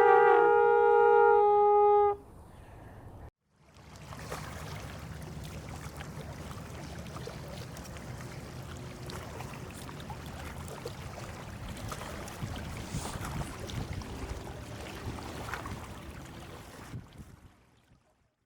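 Two long held horn notes at slightly different pitches, one ending about a second and a half in and the other about two seconds in. Then a steady rush of wind and water with a low rumble, which fades out near the end.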